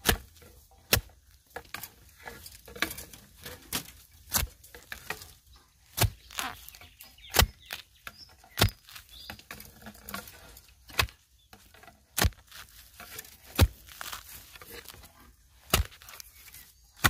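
A metal digging blade chopping into packed soil around a wild bamboo shoot: about ten sharp strikes, roughly one every one to one and a half seconds, with smaller scrapes and knocks of earth between.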